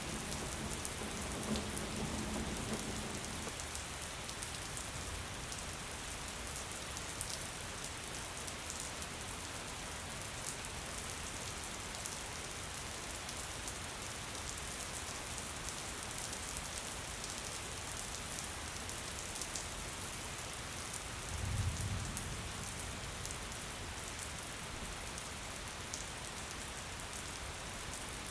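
Steady rain falling and pattering on surfaces. Two brief low rumbles break through, one near the start and a louder one about three-quarters of the way in.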